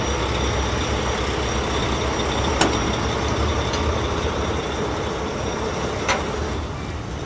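Heavy vehicle engine running steadily with a low rumble, broken by two short clicks, one about two and a half seconds in and one about six seconds in. The sound eases off slightly near the end.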